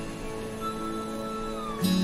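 Background music: gentle held chords, with a new chord struck just before the end.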